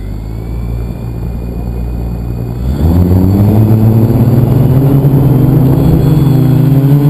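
A multicopter's electric motors and propellers spinning up, heard at close range from the onboard camera. About two and a half seconds in they throttle up sharply into a loud, steady whine whose pitch rises slowly as the craft lifts off, kicking up dust.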